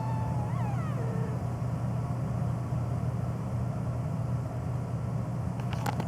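A domestic cat's drawn-out meow trailing off, falling in pitch and ending about a second in, over a steady low hum; a few faint clicks near the end.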